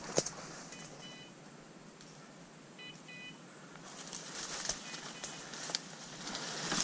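Short electronic beeps in pairs, about two seconds apart, typical of a hunting dog's beeper collar. They sound over a sharp snap at the start and brush rustling that grows louder from about four seconds in as someone pushes through undergrowth.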